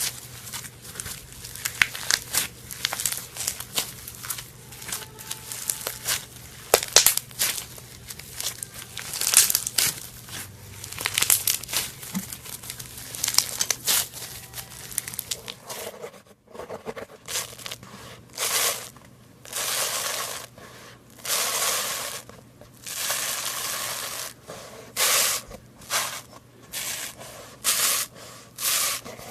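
Slime being pressed and worked, with many quick popping and crackling clicks as air bubbles burst. About halfway through the sound changes to longer squelching bursts, each lasting up to about a second and a half.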